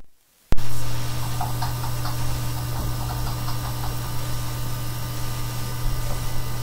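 A steady low hum with hiss cuts in suddenly about half a second in and holds at an even level.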